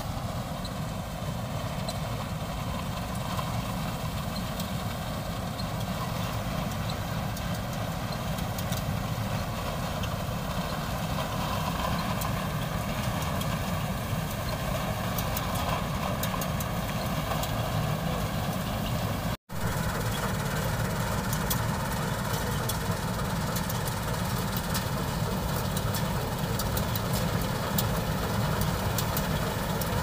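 Rice combine harvester running steadily as it harvests toward the listener: a continuous engine and machinery drone. The sound cuts out for an instant about two-thirds of the way through.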